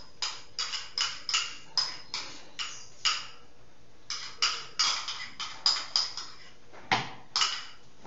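A spoon scraping and knocking against a container of condensed milk as it is emptied into a blender jar: short, sharp clicks, two or three a second, with a pause about three seconds in.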